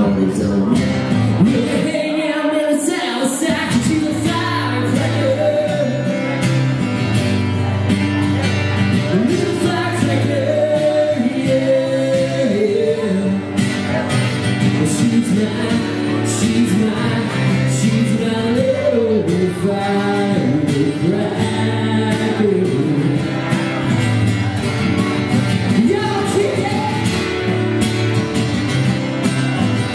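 A live acoustic country song: two acoustic guitars strummed with singing over them.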